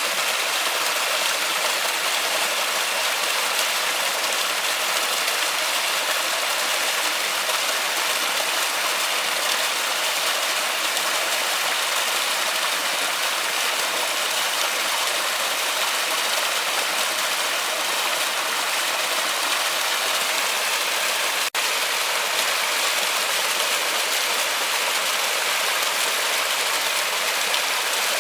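Waterfall rushing steadily, an even hiss of falling water with little bass. The sound drops out for an instant about two-thirds of the way through.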